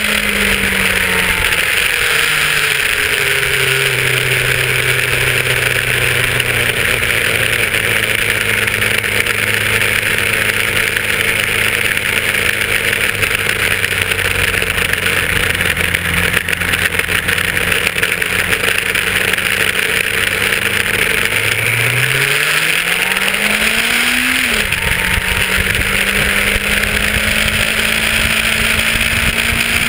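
1990 Yamaha FZR1000's inline-four engine running at steady revs under way, with wind rushing past. About 21 seconds in it revs up for about three seconds, then drops sharply, the pattern of a shift up a gear.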